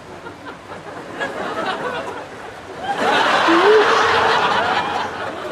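Studio audience laughter swelling up about three seconds in and fading near the end, over a background of low chatter.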